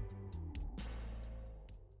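Closing bars of a reggae song fading out: bass notes and drum hits growing steadily quieter.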